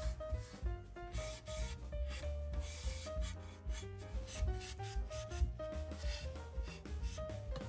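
Background music with a stepping melody over a steady bass, with repeated rubbing strokes on wood underneath.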